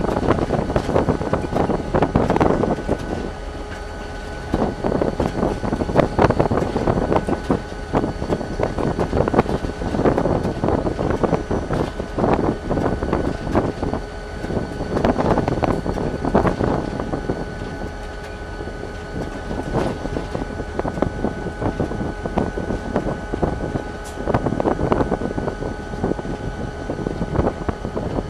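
Running noise inside the cab of a moving Chicago and North Western SD40-2 diesel-electric locomotive: its EMD 16-cylinder two-stroke diesel running under way, mixed with wheel-on-rail noise and frequent rattles and clicks.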